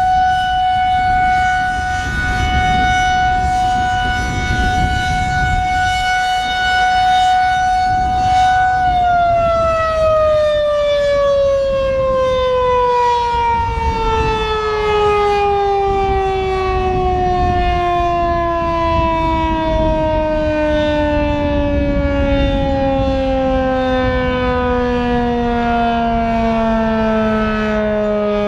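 Federal Signal 2001-130 electromechanical warning siren on test, holding a steady tone. About nine seconds in, its pitch starts to fall steadily as the siren winds down.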